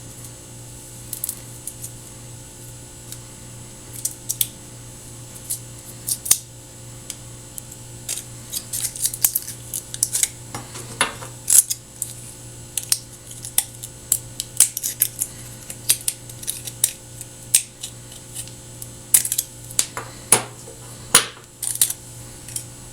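Scissors snipping away the foil shield of an HDMI cable as it is peeled back and trimmed: a long run of irregular, sharp little clicks and crinkles, some in quick clusters.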